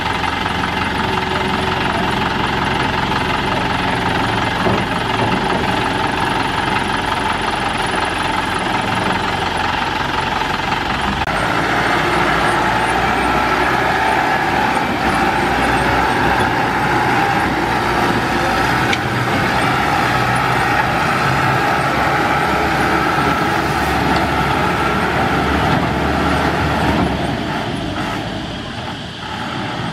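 Thaco Forland dump truck's diesel engine running steadily, then getting louder about a third of the way in as the truck pulls away.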